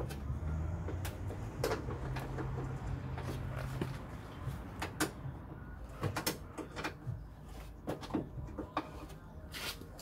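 Scattered clicks and knocks of hands and a tool working on the nuts inside a Talbot Express van's front door cavity, the sheet-metal door panel taking the taps. A low hum runs underneath for the first four seconds or so.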